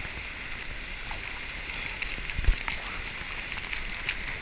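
Steady rush of flowing water, with a few faint clicks and one low thump about halfway through.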